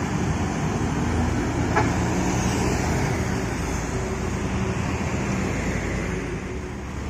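Mercedes-Benz intercity coach's diesel engine pulling away down the road amid steady traffic noise, growing a little quieter near the end.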